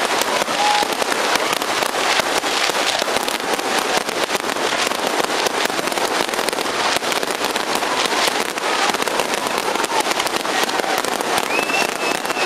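Aerial fireworks display: a dense, unbroken barrage of shells bursting, with many bangs and crackles overlapping without a pause.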